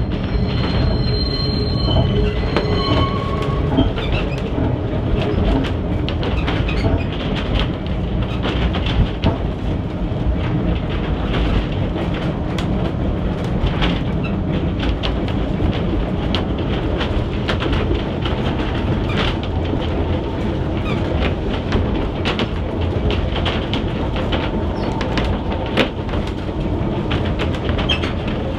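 Manx Electric Railway Winter Saloon No.21 electric tramcar running, heard from inside its wooden saloon: a steady rumble of wheels and running gear, with frequent clicks as the wheels pass over rail joints.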